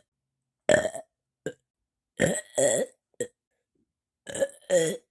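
A person burping repeatedly: a run of short burps with brief gaps between them, the longer ones about two seconds in and near the end.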